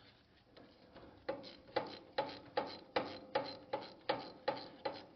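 Hand ratchet wrench clicking evenly as a bolt is backed out, about ten clicks at roughly two and a half a second, starting about a second in.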